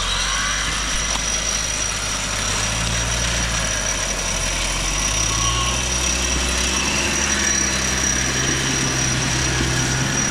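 Off-road 4x4 engine running at low revs, its pitch stepping up and down a few times.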